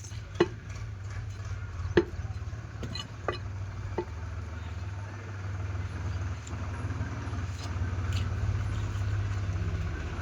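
Meat cleaver chopping a goat's head: five sharp strikes in the first four seconds, over a steady low hum like an idling engine. The hum goes on alone for the rest of the time, a little louder near the end.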